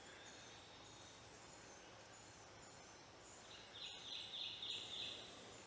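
Near silence: faint background hiss, with a short run of about five faint high-pitched chirps in the second half.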